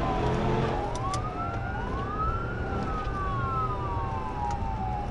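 Police car siren wailing, its pitch rising and falling slowly and repeatedly, over the patrol car's engine and road noise as it speeds up.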